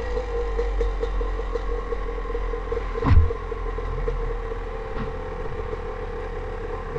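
Dirt bike engine running steadily at low revs as the bike slows to a stop on the trail, with one loud thump about three seconds in.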